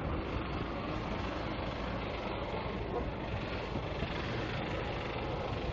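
Steady roar of aircraft engine noise on an airport apron.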